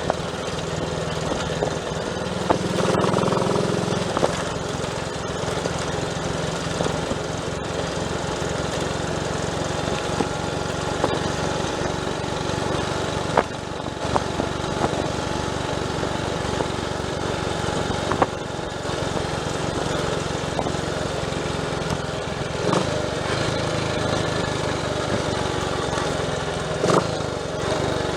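Triumph Tiger Cub's 200 cc single-cylinder four-stroke engine running steadily, with a brief louder swell about three seconds in.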